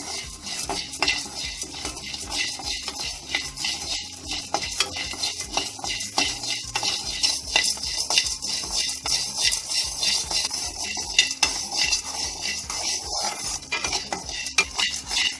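Roasted split chickpeas (pottukadalai) dry-roasting in a metal kadai, stirred with a spatula that scrapes the pan, so the dry grains rattle and clatter in a steady run of small clicks and scrapes.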